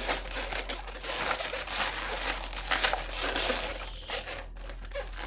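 Latex twisting balloons (260s) rubbing, creaking and crinkling against each other in the hands as one is twisted and wrapped in, an irregular run of crackles.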